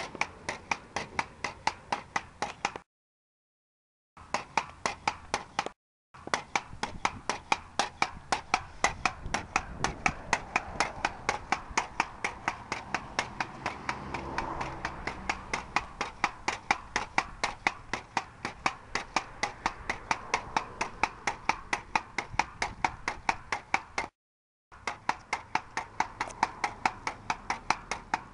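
Pogo stick bouncing steadily, a sharp clank at each landing about three times a second, broken by a few short dead-silent gaps.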